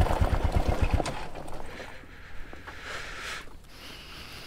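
Motorcycle engine running with a low, regular beat that cuts out about a second in, leaving a soft hiss.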